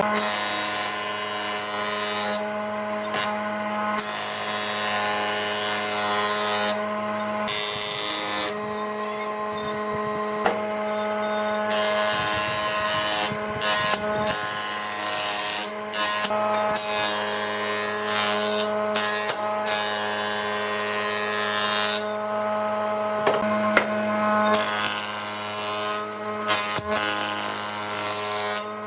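A power tool's motor running steadily at speed while working wood, with small changes in load and a few sharp clicks.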